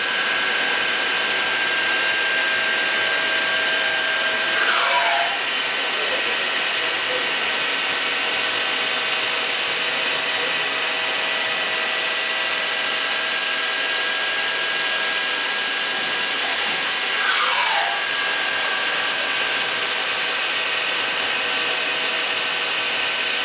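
Fadal 2016L vertical machining center running: a steady whirring hiss with a whine on top. About five seconds in the whine drops in pitch and cuts out, and near eighteen seconds it rises back up and holds steady again.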